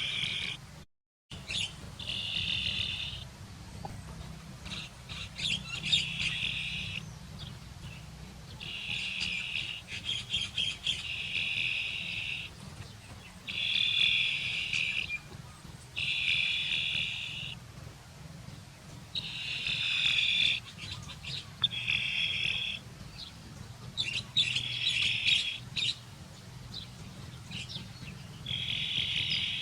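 Chick peeping in repeated bouts of rapid, high, piercing peeps, each bout lasting a second or so with short pauses between.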